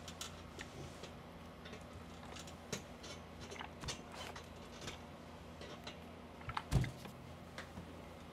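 Quiet handling sounds of clothes being ironed: scattered light clicks and taps, with one heavier thump about seven seconds in. A faint steady low hum runs underneath.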